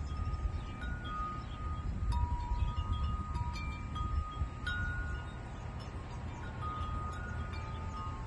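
Wind chimes ringing, struck at irregular moments with each clear note ringing on for a second or more, over a steady low rumble.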